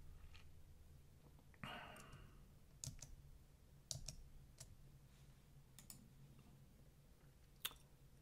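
Faint, scattered single clicks of a computer mouse and keyboard, about half a dozen spread over several seconds, with a short soft rustle just under two seconds in. Otherwise near silence.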